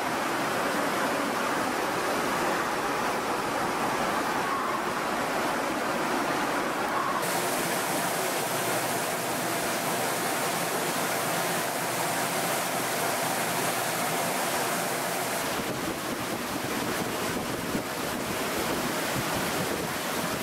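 Steady rushing hum of a subway station platform with a Midosuji Line train standing at it, its equipment and fans running. The noise changes character abruptly about seven seconds in, with a faint steady tone over it until about fifteen seconds.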